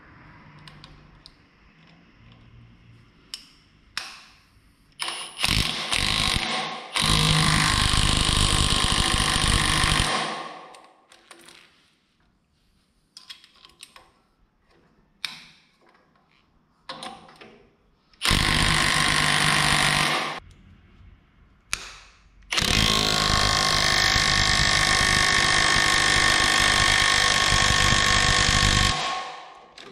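Milwaukee M18 FUEL high-torque cordless impact wrench hammering in three runs: about five seconds in, briefly around eighteen seconds, and for about six seconds from twenty-two seconds. It is driving the nuts onto the bolts of the green teeth on a Rayco RG50 stump grinder's cutter wheel, and metal parts clink in between.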